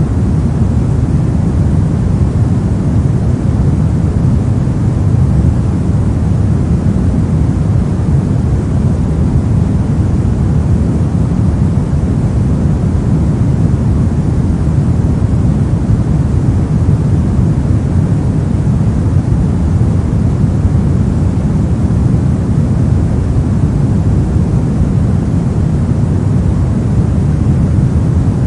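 Steady pink noise: an even, unchanging hiss weighted toward the low end, with a deep rumble under a fainter top.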